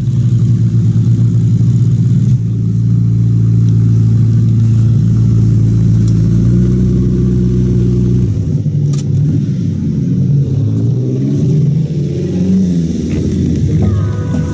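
McLaren P1's twin-turbo V8 idling steadily. After about eight seconds its pitch wavers up and down, then music fades in near the end.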